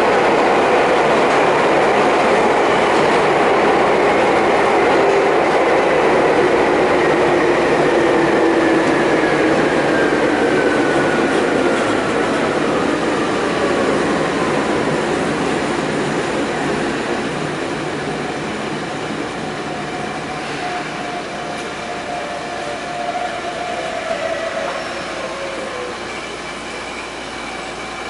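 Nagano Electric Railway 8500-series electric train heard from inside the car in a tunnel, braking into a station: steady wheel and running noise with whines that slowly fall in pitch as it slows, getting quieter toward the end.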